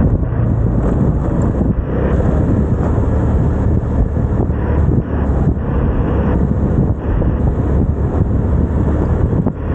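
Vespa scooter running while riding, its engine mixed with wind rumbling on the microphone, fairly steady with brief small dips.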